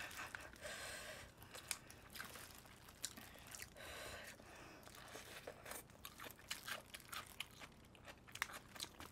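Faint crinkling of disposable plastic gloves and foil as glazed chicken is pulled apart by hand, with soft chewing and small scattered clicks. Two brief soft rustles come about a second in and again about four seconds in.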